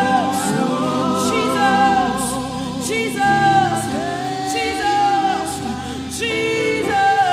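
Gospel choir singing a slow worship song, holding long notes.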